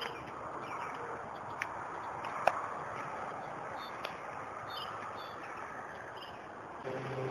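Outdoor pasture ambience: a steady hiss with faint, short, high bird chirps now and then, and three sharp clicks, the loudest about two and a half seconds in. Near the end a steady chord of low tones begins.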